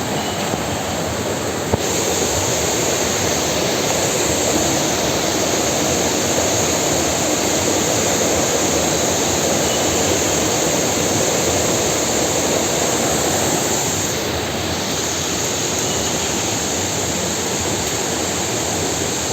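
Steady rushing noise with no clear pitch or rhythm. A higher hiss joins it about two seconds in and drops out briefly around the fourteen-second mark.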